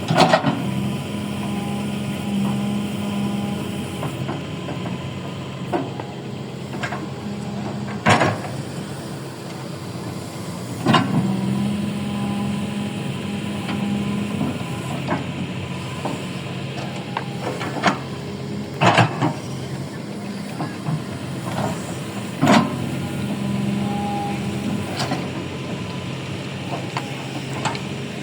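Excavator working through a dig: a steady mechanical hum that swells and eases in spells, with sharp knocks about every three to eight seconds.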